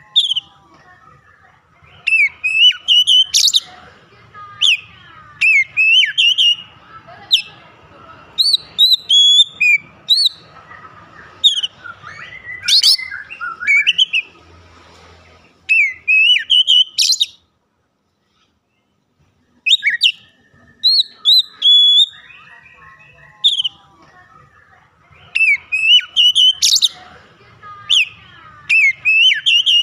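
Oriental magpie-robin singing in full voice: loud, varied whistled phrases with quick rising and falling slurs, in bursts separated by short pauses, with a complete break of about two seconds near the middle.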